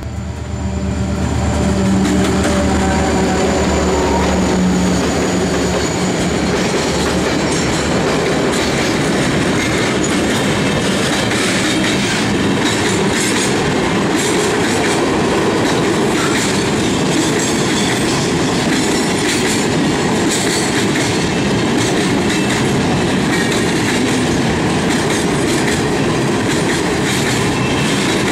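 EMD GT22 diesel locomotive passing close with its engine running for the first few seconds, then a freight train of hopper wagons rolling steadily by with a continuous rumble and the clickety-clack of wheels over the rail joints.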